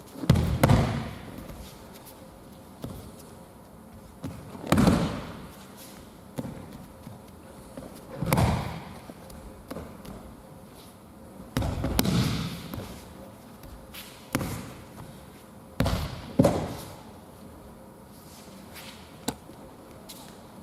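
Aikido partners being thrown and taking breakfalls onto tatami mats: a heavy thud with a short slapping smear every three to four seconds, with lighter knocks of feet and bodies on the mat between.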